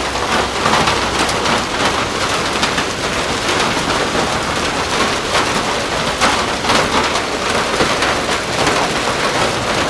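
Heavy hailstorm: hailstones and rain pelting wet pavement and parked cars as a dense, steady patter of many small hits.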